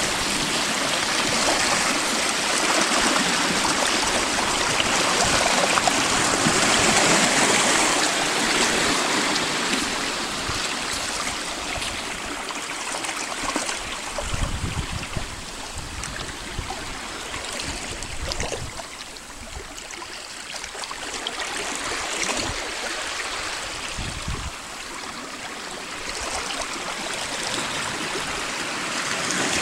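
Seawater washing and splashing among shoreline rocks: a steady rush that swells and eases with the waves, louder in the first third and softer past the middle.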